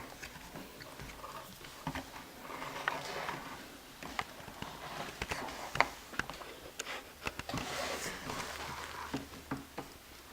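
Kinetic sand and sand toys being handled: soft scraping and rustling with scattered light taps and clicks.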